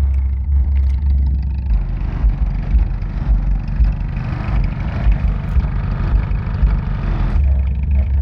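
Pioneer TS-W305F 12-inch car subwoofer playing loud, deep bass, heard from outside the car. The bass steps down to a lower note about two seconds in and comes back up near the end.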